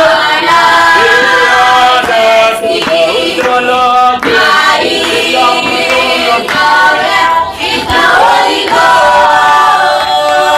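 A group of voices singing a gospel chorus together, men and women, unaccompanied, holding long notes.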